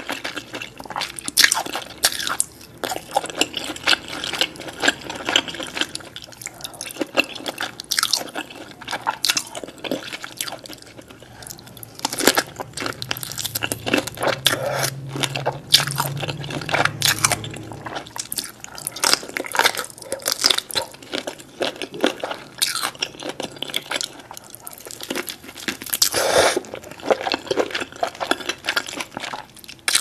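Close-miked wet chewing and lip-smacking of king crab meat with creamy sauce, full of sharp, irregular wet mouth clicks and smacks.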